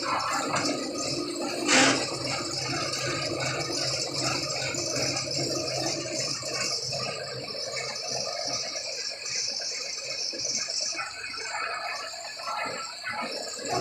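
Continuous rattling with one sharp knock about two seconds in, over a steady high hiss.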